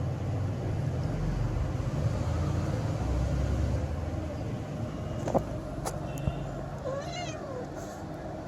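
A cat meows once, about seven seconds in: a short call that rises and then falls in pitch. Before it there are a few sharp clicks, and a low rumble runs under the first half.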